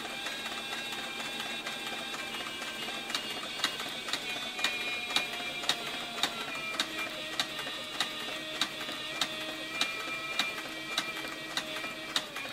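Cowboy CB4500 leather sewing machine stitching slowly through saddle-skirt leather: a sharp clack from each stitch about twice a second, starting a few seconds in, over the steady whine of its motor, whose pitch sinks slowly.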